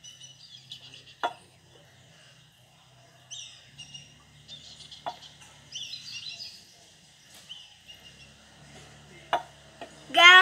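Three sharp knocks, about a second in, about five seconds in and near the end, as a drinking glass and a steel tumbler are handled on a wooden table, with birds chirping in the background.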